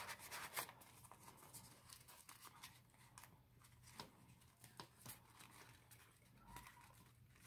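Faint rustling of paper banknotes and a clear plastic binder pouch being handled as the bills are slid in, with a few light clicks scattered through.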